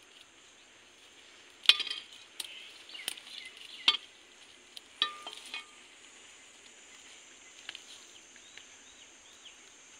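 A handful of sharp clicks and snaps, about six in the first six seconds, from a person stepping through dry undergrowth and handling a sickle at a tree trunk, over a steady high drone of insects.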